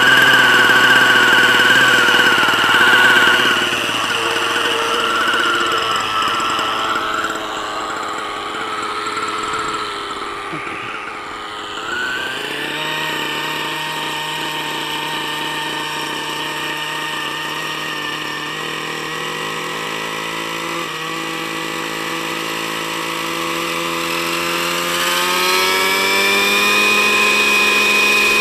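Glow (nitro) engine of a JR Vigor 60 RC helicopter running at idle. Its pitch wavers in the first few seconds, then settles. About 25 seconds in, the pitch climbs as the throttle is opened and the rotor spins up.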